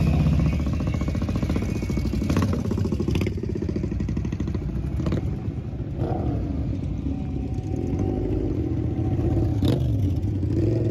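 Several motorcycles riding past one after another on gravel, their engines rising and falling in pitch as each goes by, with a few sharp clicks along the way.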